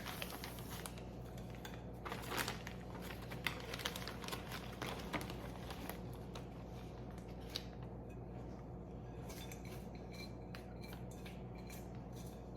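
A utensil scraping and clinking against a bowl as chocolate-coated cereal is tipped into a bag of powdered sugar. The clicks come in irregular clusters, thinning out in the second half, over a steady low hum.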